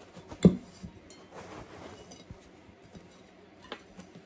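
Cast iron skillet lifted off a turned-out cornbread and set down with one heavy clunk about half a second in, followed by scraping and rustling and a couple of light clinks of the plate.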